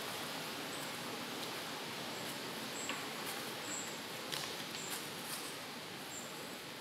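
Forest ambience: a steady rushing background with a short, high, thin chirp about once a second and a few faint clicks.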